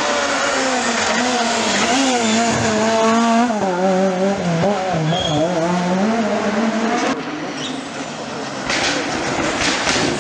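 Rally cars at speed on a tarmac special stage. A car's engine revs rise and fall through gear changes over the first seven seconds. The sound then cuts abruptly, and another rally car is heard coming near the end.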